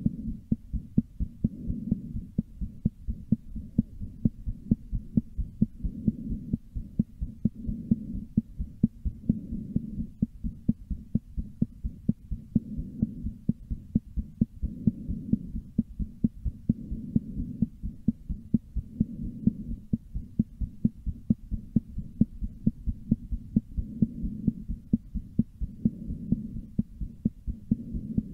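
A person's heartbeat: a fast, regular series of low thumps, about two a second, over a low hum.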